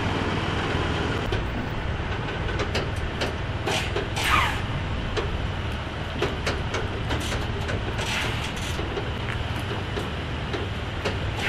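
Heavy-haulage truck and multi-axle low-loader trailer moving slowly with a steady low rumble, with scattered clicks and creaks and a short falling squeal about four seconds in.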